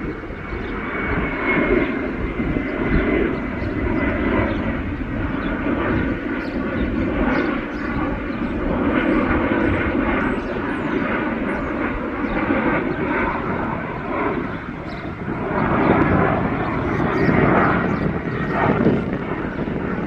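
Jet airliner engines running: a steady broad roar with a faint high whine sliding slowly down in pitch.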